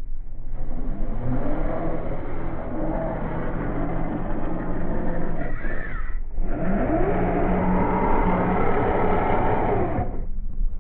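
A 1/10-scale RC crawler's electric motor and geared drivetrain whining as it is throttled, in two runs: the whine rises in pitch and holds, cuts out briefly about six seconds in, rises again and stops suddenly near the end.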